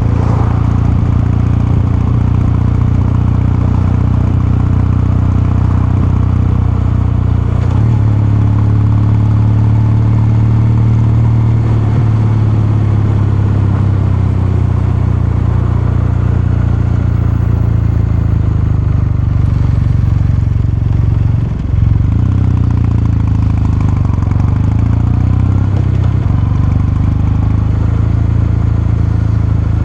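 Kawasaki Meguro K3's air-cooled 773 cc parallel-twin engine and exhaust running steadily under way. The engine note shifts in pitch a few times and briefly dips and picks up again about two-thirds of the way through, as at a gear change.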